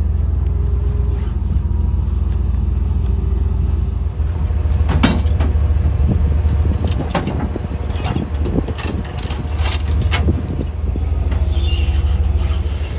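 Wrecker's engine running at raised speed to drive its hydraulic wheel-lift, a steady low drone. About five to ten seconds in come a run of metallic clinks and knocks from the chains and lift hardware.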